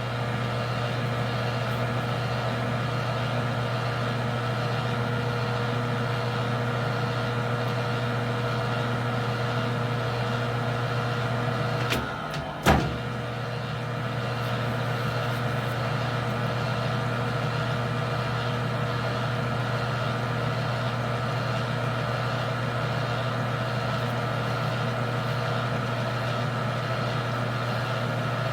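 Metal lathe running steadily in reverse, backing a 3/8-16 threading die off the freshly cut thread on the screw. About twelve seconds in there are two sharp clicks, and the running sound dips briefly between them.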